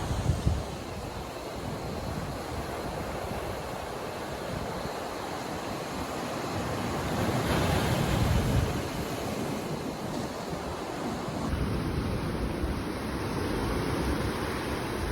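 Sea surf washing onto a beach, with wind buffeting the microphone. A wave surges louder about halfway through.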